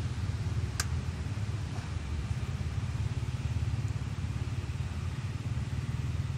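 Steady low rumble of a running motor, with a single sharp click about a second in.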